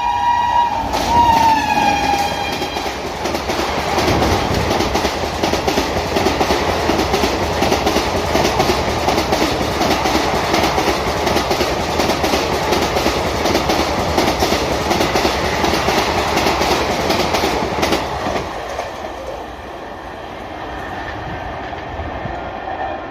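A WAP7 electric locomotive's horn ends with a drop in pitch about a second in. Then a train of ICF coaches rushes past at full speed, with a rapid clickety-clack of wheels over rail joints. The noise cuts off sharply near the end as the last coach passes.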